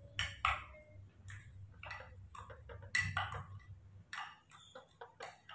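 A metal spoon stirring milk-and-porridge in a glass mug, clinking against the glass in irregular light taps, some with a short ring. The loudest clinks come near the start and about three seconds in.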